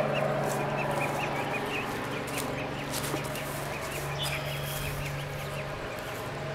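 A huddled flock of ducklings peeping: short, high chirps repeated several times a second, over a steady low hum.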